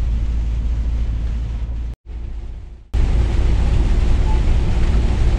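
Steady drone inside a Scania S500 truck's cab on the move: engine and road noise with a deep low rumble. It drops out briefly about two seconds in, then comes back louder with more hiss.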